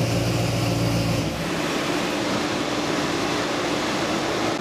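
Ford 351 Windsor small-block V8 (5.8 L, aluminium heads) running steadily on a dyno test stand; about a second in its low, even running tone stops abruptly. After that a loud, steady rushing noise with a faint hum carries on.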